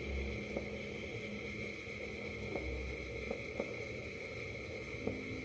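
Naan bread cooking on a hot flat griddle: a steady gentle sizzle with a handful of small pops as the dough crackles.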